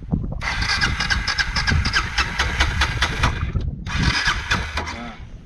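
Motorcycle's electric starter cranking the engine in two goes: about three seconds, a brief stop, then about one more second.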